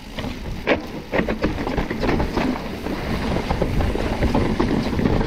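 Full-suspension mountain bike riding down a steep, rough trail: tyres grinding over dirt and rock, with a steady run of knocks and rattles from the bike.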